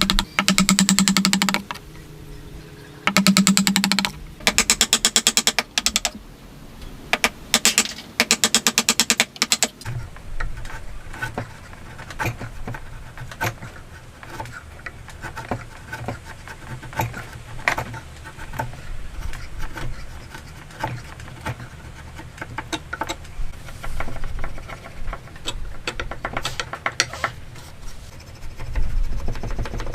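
Wood being worked by hand: short runs of rapid, even strokes, then from about a third of the way in, scattered light taps and clicks.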